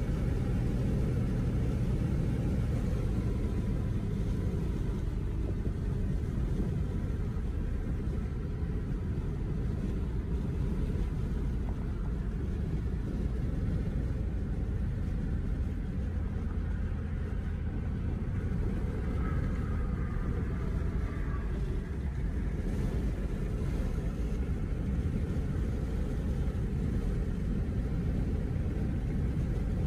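Steady low road and engine rumble heard inside a car's cabin while driving at highway speed.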